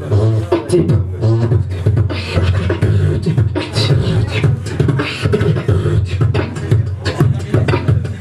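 Beatboxing into a handheld microphone: a steady rhythm of sharp percussive mouth sounds over a continuous low hum.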